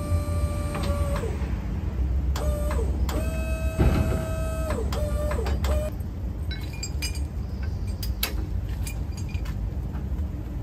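The Maxilift ML230 knuckle boom crane's hydraulic drive whines in several short runs, its pitch sagging each time it stops, as the boom and hook are moved, over a low steady rumble. From about six seconds in come light metallic clinks as the lifting chain is hooked onto a concrete block.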